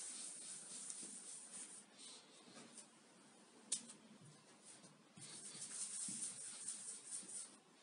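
Palms rolling a soft dough ball against a tabletop: a light rubbing, swishing noise in two stretches, with a single sharp click near the middle.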